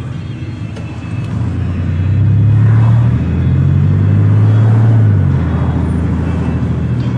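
Truck engine and road noise heard from inside the cab while driving, swelling louder about two seconds in and easing back after about five seconds.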